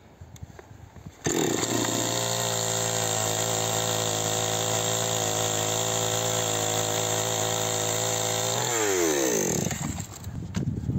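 Chainsaw cutting into the seat logs of a pine log bench. It comes in suddenly at high revs about a second in, holds a steady pitch, then winds down with falling pitch near the end.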